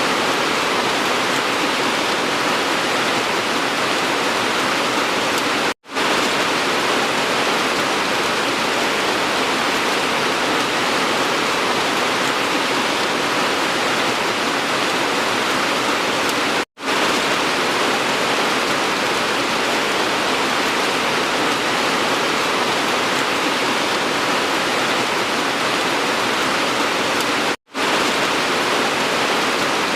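Steady, dense hiss of heavy rain. It cuts out for a split second three times, about eleven seconds apart.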